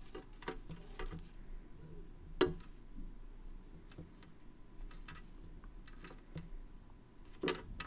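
Scattered light clicks and taps of handling as a praying mantis is poked in its terrarium, with one sharper knock about two and a half seconds in and another near the end.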